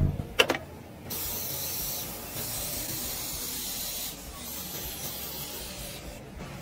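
Facial airbrush spray gun hissing as it mists the skin. The hiss starts about a second in, after a short click, and drops to a quieter hiss about four seconds in.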